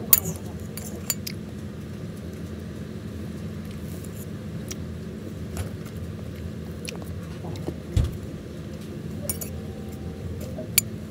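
Metal fork clinking and scraping on a ceramic plate as it cuts into soft cake: several sharp clinks spread out, the loudest right at the start, and a dull thump about eight seconds in, over a steady low hum.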